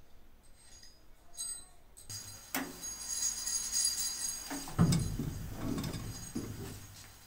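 Metal clutch levers clinking lightly against each other and a wire rack as they are hung. Then a powder-coating booth: a steady low hum with the hiss of a powder spray gun, a few sharp knocks, and a heavy thump about five seconds in.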